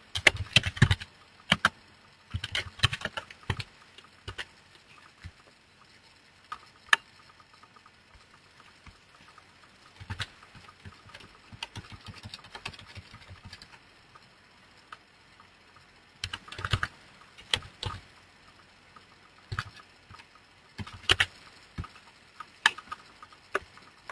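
Typing on a computer keyboard: short runs of clicking keystrokes with pauses between them.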